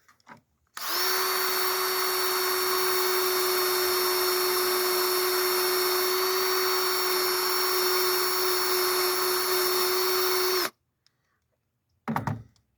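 Cordless drill spinning a wire wheel at a steady speed for about ten seconds, wire-brushing metal clean, with a steady whine; it cuts off suddenly. A brief knock follows near the end.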